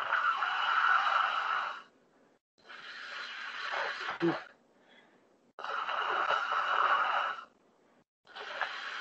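A man taking deep, noisy breaths in and out through a wide-open mouth as a postural breathing exercise. Each breath lasts about two seconds with a short pause between, and every other breath is louder. Heard through video-call audio.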